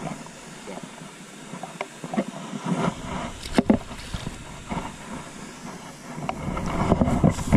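A released fish splashing back into the pond at the bank about three and a half seconds in. Under it runs a steady hiss with scattered small knocks, and a low rumble comes up about six seconds in.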